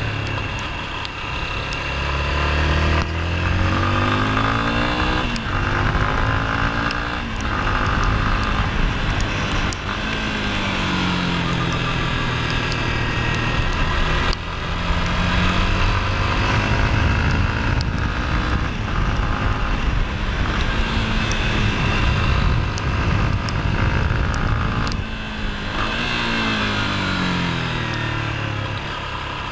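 Yamaha XTZ 250 Lander's single-cylinder four-stroke engine running hard on track, its pitch rising and falling over and over as the rider accelerates, shifts and rolls off for corners.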